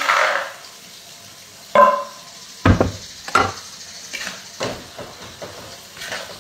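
Dishes and kitchen utensils clattering: a string of sharp knocks and clinks, with a ringing clink about two seconds in and a heavier knock just after.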